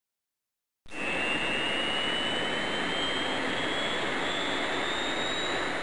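Jet engine starting and spooling up: a steady rushing noise that begins abruptly about a second in, with a high whine rising slowly in pitch.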